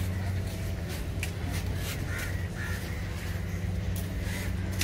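Crows cawing, several short caws, over a steady low hum.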